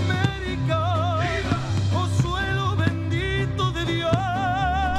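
Orchestral music with a melody held in a wavering vibrato over steady bass notes.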